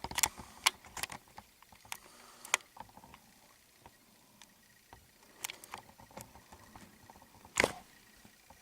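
Scattered light clicks and taps of handling, with one louder knock about three quarters of the way through.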